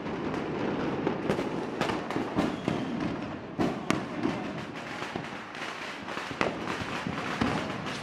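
Fireworks going off: a dense crackling with louder bangs at irregular intervals.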